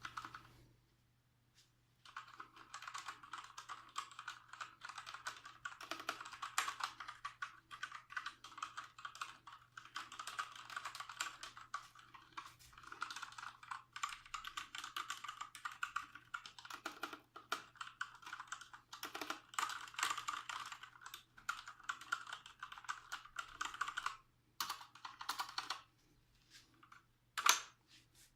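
Typing on a Gamdias Hermes E2 mechanical keyboard with TTC Brown tactile switches. A fast, continuous run of keystrokes starts about two seconds in and lasts some twenty seconds, then thins to a few scattered keypresses and one louder stroke near the end.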